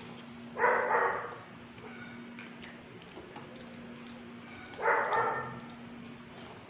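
A dog barks twice, once about a second in and again about five seconds in, over a steady low hum.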